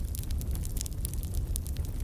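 Wood fire in a fireplace crackling, with frequent small sharp pops over a low steady rumble of the flames.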